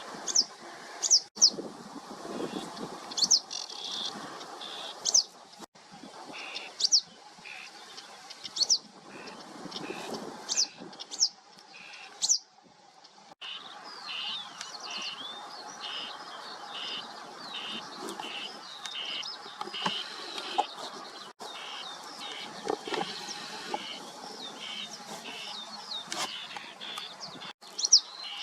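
Songbirds singing and calling. For the first half, sharp high falling notes come every second or two; after that come quick runs of short chirps. The sound breaks off abruptly several times.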